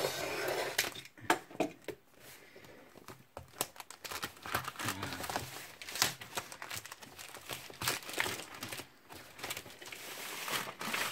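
Plastic courier mailer bag being slit open with a utility knife and pulled off a cardboard box: irregular crinkling and tearing of the plastic.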